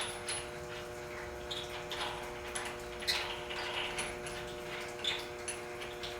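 Steady electrical-mechanical hum of boiler-room equipment, with scattered light clicks and short high squeaks from metal parts being handled.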